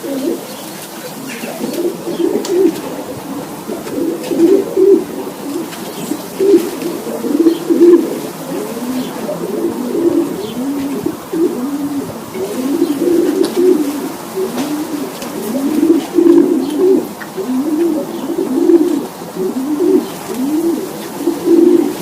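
Racing pigeons cooing in the loft: many low, overlapping rising-and-falling coos, one after another without a break.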